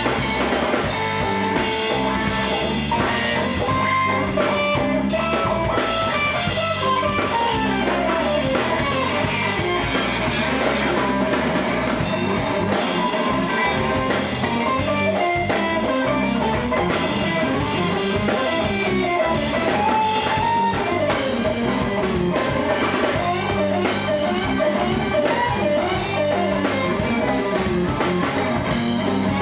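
Live jazz-fusion instrumental: electric guitar playing winding lead lines over a drum kit, steady and unbroken throughout.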